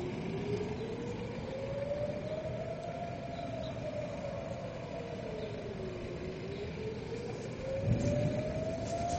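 Air-raid warning siren wailing, its pitch slowly rising and falling about every six seconds: a rocket-attack alert. A low thump comes about eight seconds in.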